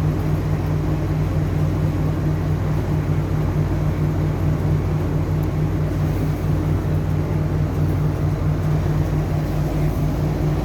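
An engine running steadily, a low, even drone that holds unchanged throughout.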